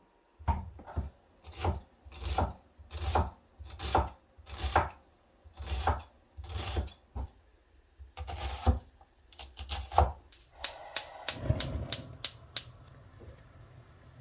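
Knife chopping on a wooden cutting board: about a dozen slow, even strokes, then a run of quicker, lighter taps that stops shortly before the end.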